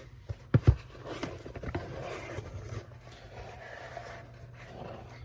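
Domestic cat purring steadily underneath, with a couple of sharp knocks about half a second in followed by rustling and scraping.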